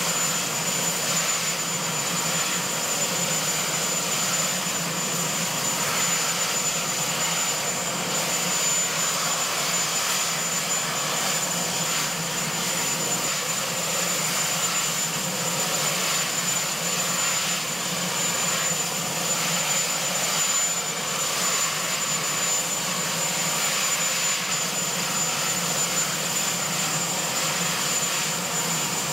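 Marine One VH-3D Sea King helicopter's turbines running steadily on the ground: a constant rushing noise with a steady high-pitched whine over it.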